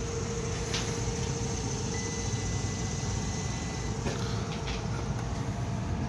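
Steady low background rumble with a multimeter's continuity beep, a thin high tone lasting about two seconds in the middle, as the leads are held on the low-pressure switch circuit.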